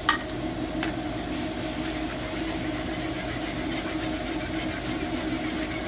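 Steady drone of a commercial kitchen exhaust hood and a gas wok burner on high flame, with two sharp clinks of the metal ladle against the wok in the first second.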